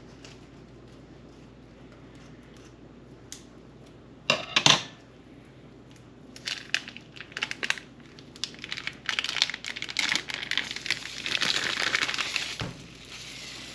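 Plastic chub wrapper around a log of raw ground sausage crinkling and tearing as it is peeled and squeezed off, with a loud brief crackle about four seconds in and near-continuous crinkling through the second half. A dull knock near the end as the freed sausage log tips over into the frying pan.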